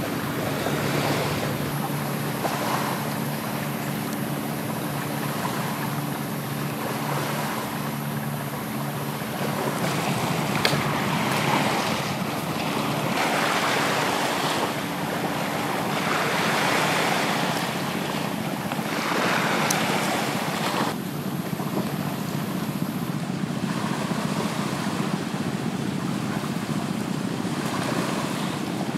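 Sea surf washing onto a sandy beach with wind, swelling and falling every few seconds. A low steady hum runs underneath for the first ten seconds or so, then fades out.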